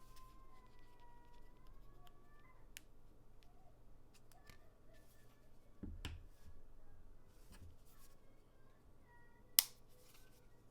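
Quiet handling of a phone and its accessories: scattered small clicks and taps, a louder knock about six seconds in and one sharp click near the end.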